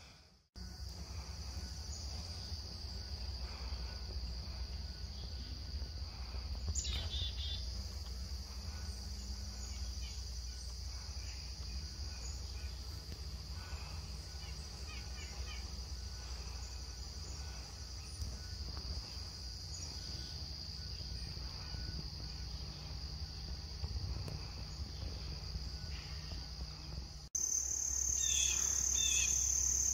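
Steady high-pitched drone of an insect chorus, with a low rumble underneath and a few faint short chirps. Near the end the drone jumps a little higher and louder.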